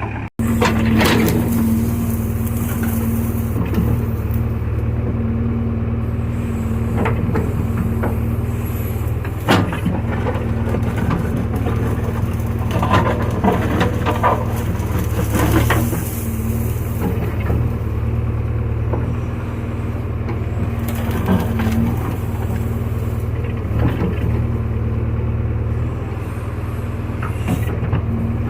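Diesel engine of a JCB 3DX backhoe loader running steadily under working load, with sharp knocks and clanks at irregular intervals throughout.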